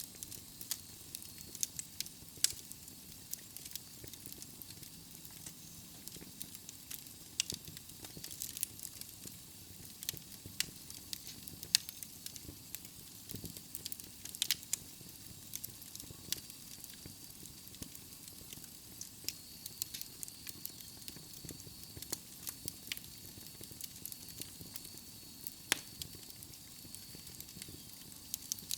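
Wood fire of burning logs in a fireplace, crackling steadily, with irregular sharp pops over a low hiss. A faint thin high whistle comes in about halfway through.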